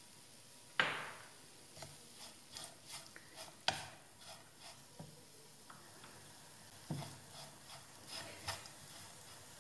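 Wooden spatula stirring and scraping a dry shredded chicken masala in a frying pan, with scattered knocks of the spatula on the pan; the loudest come about a second in, near four seconds and near seven seconds.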